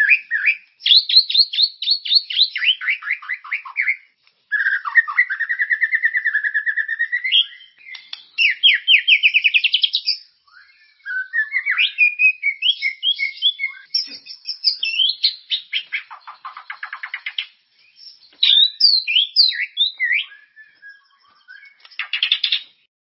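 White-rumped shama (murai batu) in full song: a long run of varied phrases, rapid trills and quick rising and falling whistles, one after another with short pauses between them.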